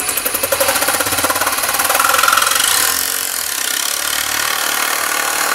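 Reciprocating saw running at speed and cutting through 2-inch PVC pipe, a fast, steady buzz of blade strokes.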